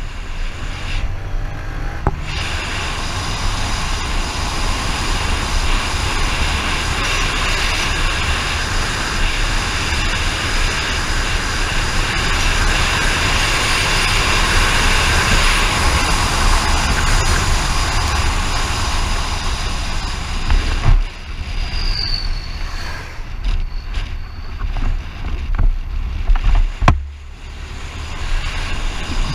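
A vehicle on the move: steady road and wind noise over a low engine drone. Near the end it turns uneven, with a few dips and sharp knocks.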